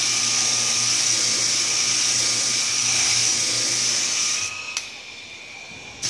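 Homemade hand sander built from a 1/4 hp washing-machine motor, running against wood: a steady motor hum under a loud hiss of sandpaper on wood. About four and a half seconds in the sound drops to a much quieter level, with a sharp click shortly after.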